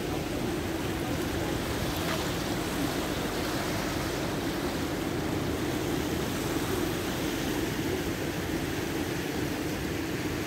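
Fast-flowing floodwater of a swollen river rushing steadily past, a continuous even noise of churning water.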